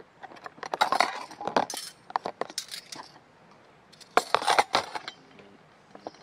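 Metal spoons clinking and rattling against each other and a clear plastic storage box as they are handled, with cloth rustling. It comes in two spells: from about a second to three seconds in, and again around four to five seconds.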